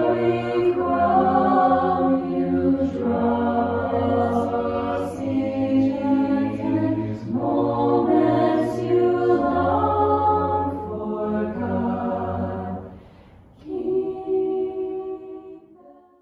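An a cappella group singing held chords in close harmony, with no instruments. The chords change every second or two; near the end they break off briefly, then a last chord fades out.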